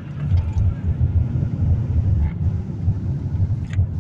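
In-cabin engine and road noise from a 2007 Ford Edge's 3.5 L V6 under way: a steady low rumble with the revs easing down, the engine running without sputtering on its newly replaced throttle body. A short click near the end.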